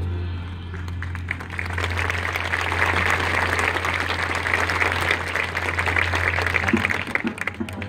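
Audience in the stands applauding, the clapping swelling from about a second in and dying away near the end, over a steady low tone.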